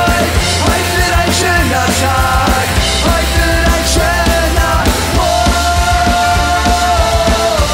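Live rock band playing loud: electric guitars and bass over a steady drum-kit beat.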